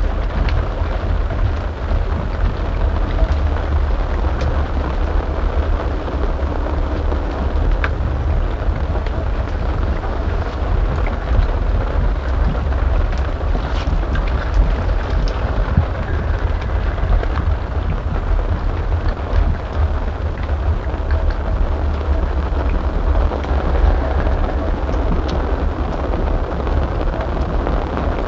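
Steady low rumble and rushing noise on an open fishing boat in the rain, with scattered light ticks of raindrops, over the running boat engine.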